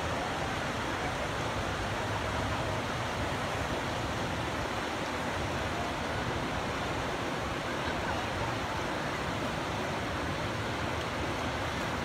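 Steady rush of churning white water pouring over and below a low river dam.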